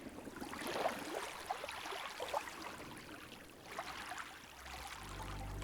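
Faint outdoor background with scattered short, high chirps, and a low steady hum fading in near the end.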